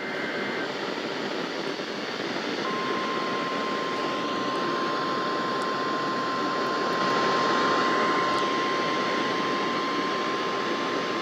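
Radio static hiss over a NOAA Weather Radio broadcast. From about three seconds in, one steady tone near 1 kHz sounds over it: the 1050 Hz warning alarm tone, sounded for the weekly test.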